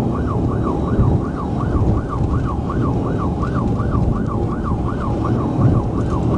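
Police car siren in a fast yelp, sweeping up and down about three and a half times a second, over heavy engine and road rumble from the pursuing patrol car.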